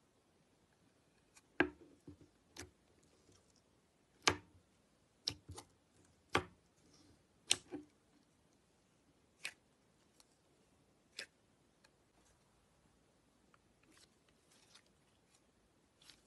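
Clear slime in a plastic tub being poked and pressed with a fingertip, giving about ten sharp pops and clicks at irregular intervals, fewer and fainter in the last few seconds.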